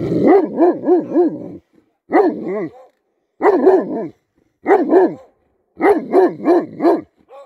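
German Shepherd barking at another dog passing by, in quick bursts of two to five barks with short pauses between.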